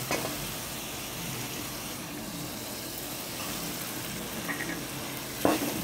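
Chicken and masala sizzling steadily in a frying pan as chopped tinda (round gourd) pieces are tipped in, with a sharp knock of the spoon against the pan near the end.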